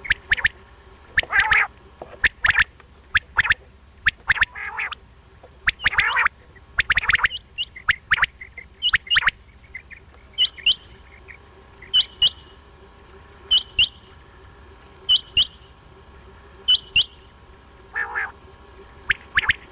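Quail calling, a recorded quail call played as a hunting lure. The first half is a dense run of short, sharp, overlapping calls; after that come short double notes repeated about every one and a half seconds.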